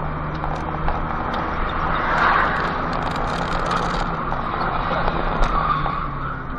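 Steady engine hum and road noise of a car driving, with the rushing noise swelling briefly about two seconds in and a few light clicks.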